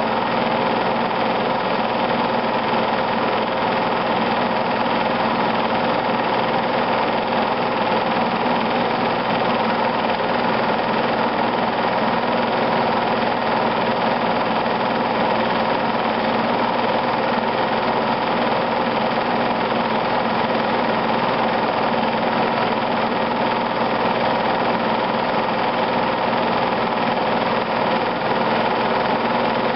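A home-movie film projector running, a steady mechanical hum with several constant tones that does not change with the picture.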